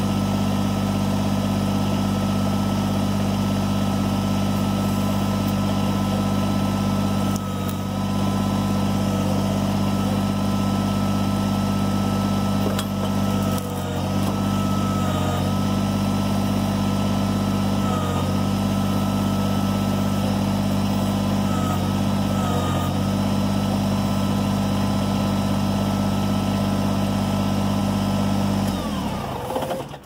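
Kubota BX23S sub-compact tractor's three-cylinder diesel engine running steadily, dipping briefly several times under load as the backhoe hydraulics are worked. Near the end the engine shuts off and winds down.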